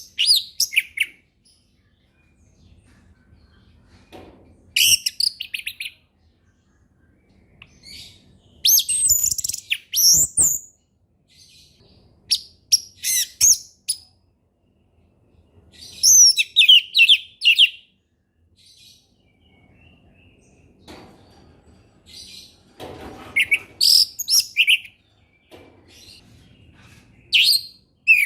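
Orange-headed thrush singing: short, varied phrases of quick sweeping whistles and trills, about one phrase every three to five seconds with pauses in between.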